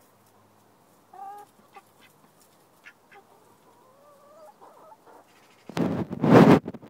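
Backyard hens and ducks: a single call about a second in, then soft clucks and a few light clicks. Near the end comes a loud, short rustle of the phone being moved.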